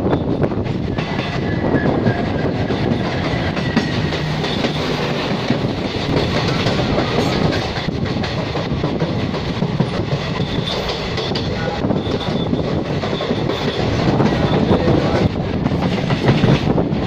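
Express train coach running at speed, heard from an open door: steady rush and clickety-clack of wheels on the rails. The rush is mixed with the noise of passing a freight train on the next track: its diesel locomotive at the start, then a long line of covered wagons.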